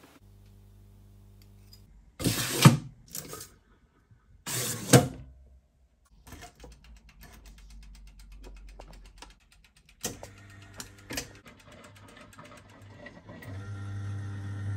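Watch-cleaning machine being set and started: two loud knocks and clatters of handling, a run of light ticking and clicks as the timer dial is turned, then the machine's motor hums steadily for the last second or so as it spins the basket of movement parts in cleaning solution.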